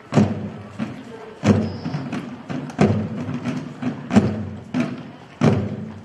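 A group of medieval-style field drums beating a slow marching cadence: a loud accented stroke about every one and a third seconds, with lighter strokes in between.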